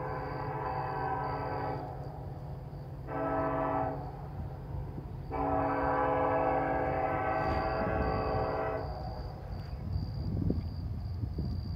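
Air horn of BNSF 9101, the lead locomotive of an approaching coal train, sounding the end of a grade-crossing signal. A long blast stops about two seconds in, then comes one short blast and a final long blast of about three and a half seconds, all over a low rumble from the train.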